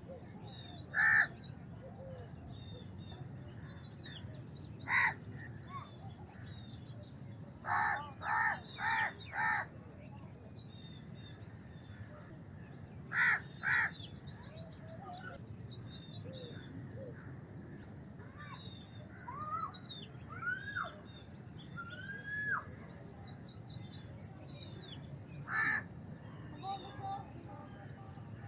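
House crows cawing in harsh single calls and short runs, including a quick series of four, over a steady chatter of high chirps from small birds and a few rising whistled notes.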